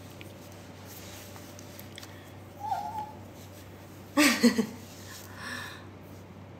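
A dog whines once briefly, then gives a louder short burst of yelping whimpers about a second and a half later, followed by a fainter one.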